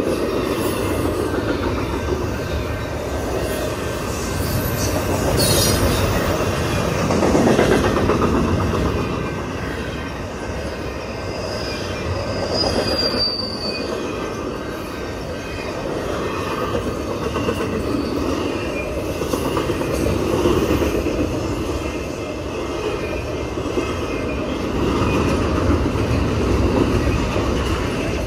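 Double-stack container train's well cars rolling past: a steady rumble and clatter of steel wheels on rail, with a brief high wheel squeal about halfway through.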